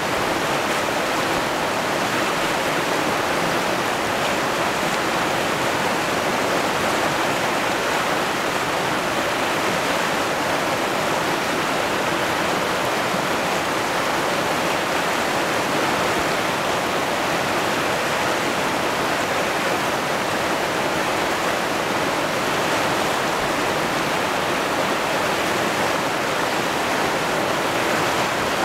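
Fast river rapids rushing over boulders: a steady, even rush of whitewater with no change in level.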